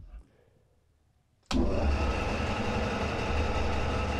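70-year-old bandsaw switched on at a power strip about a second and a half in: its electric motor comes on at once and runs steadily, a hum with a whir over it. A soft click comes just before.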